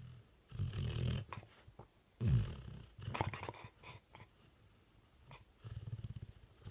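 Dog snoring: about four rattling snore breaths with pauses between them. The loudest comes about two seconds in and falls in pitch, and another begins near the end.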